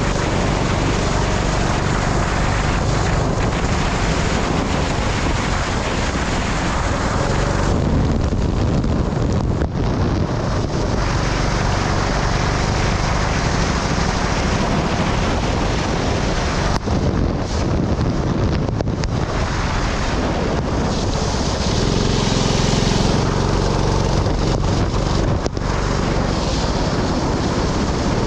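Sprint kart engine running at speed, its note shifting as the kart goes through the lap, with heavy wind buffeting the microphone. The engine eases off briefly twice, about eight seconds in and again near seventeen seconds.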